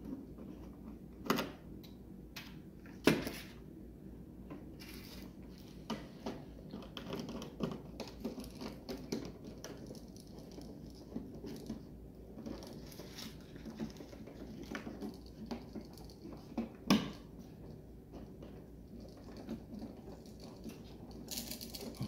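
Hands handling and twisting electrical wires into a twist-on wire connector at a switch box: small clicks, rustles and taps of wire and plastic, with a few sharper knocks, one about a second in, one about three seconds in and one near the end.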